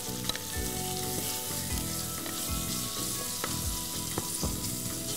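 Onions sizzling as they fry in oil in a pot, being sautéed until soft and brown, stirred with a wooden spatula that knocks against the pot about once a second.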